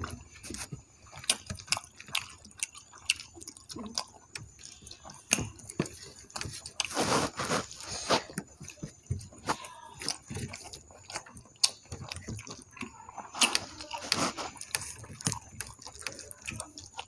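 Eating sounds of two people eating rice and runny dal with their fingers: wet squelches and clicks as hands mix the rice on the plates, with chewing and lip-smacking. Many short sharp clicks come in an irregular stream throughout.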